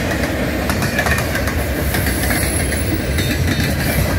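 Freight cars of a manifest train rolling past, a steady rumble with wheels clacking over the rail joints. The draft from the passing cars buffets the microphone.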